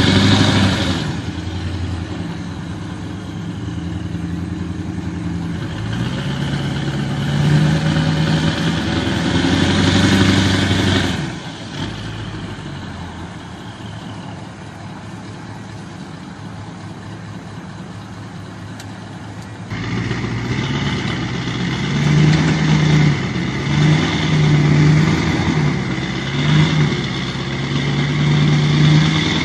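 Pickup truck engines running and revving, the pitch rising and falling. The sound drops off suddenly about eleven seconds in and comes back louder near twenty seconds.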